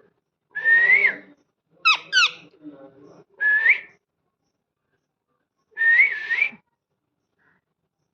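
Pet parrot giving a string of whistled calls. First comes a short whistle, then two quick whistles sweeping steeply down in pitch, then a rising whistle. The last call, near the end, rises twice.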